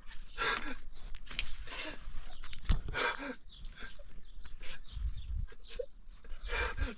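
Animal calls: a series of short cries, roughly one a second.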